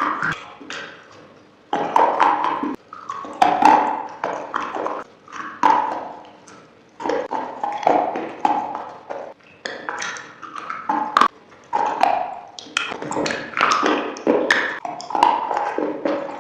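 Crunchy food being bitten and chewed close to the microphone: sharp crackling crunches in clusters every second or two, with short pauses between.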